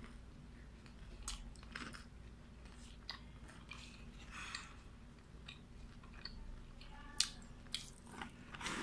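Close-up chewing and biting of a salted egg-coated fried chicken wing: soft, scattered crunches and mouth sounds, with a few sharper clicks near the end.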